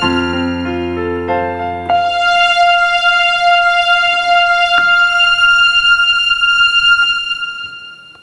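Casio synthesizer playing a waltz melody over auto-accompaniment chords and bass. About two seconds in, the accompaniment stops and a single final melody note is held, then fades away near the end.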